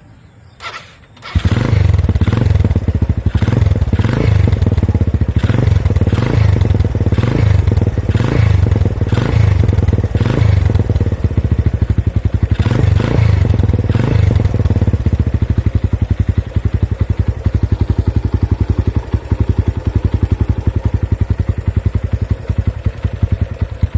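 Suzuki Thunder 125's single-cylinder four-stroke engine starting, running through an Apido exhaust on its quietest setting with the silencer and tip fitted. It catches about a second in, is blipped about once a second for roughly the first half, then idles steadily.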